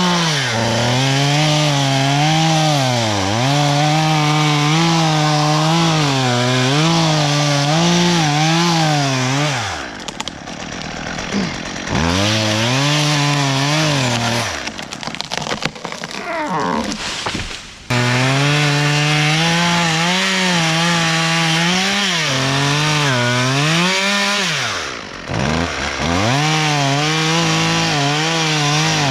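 Chainsaw engine running at full throttle while cutting wood, its pitch wavering as the chain bites. The throttle is let off about ten seconds in and again for a few seconds in the middle, then the saw is opened back up sharply.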